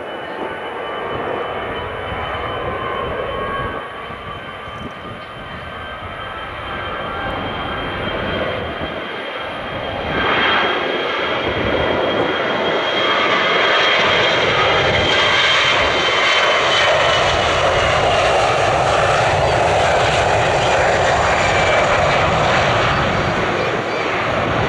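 Jet airliner's engines during a departure, growing louder about ten seconds in and holding loud, with a high whine that slowly falls in pitch.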